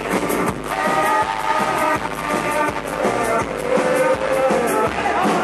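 Live folk band playing with no vocals: acoustic guitar, mandolin and double bass over drums keeping a steady beat.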